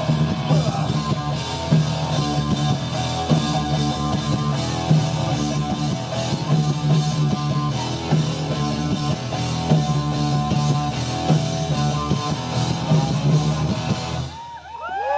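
Live rock band playing an instrumental passage on electric guitars and drum kit, with a heavy accent hit about every second and a half. The music breaks off shortly before the end, and high sliding tones follow.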